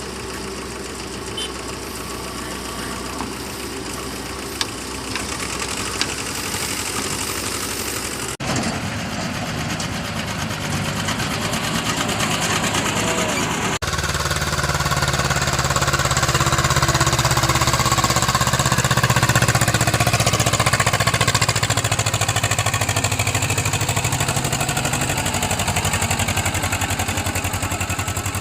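JCB 3DX backhoe loader's diesel engine running steadily. It grows louder and heavier about halfway through, as if working under load.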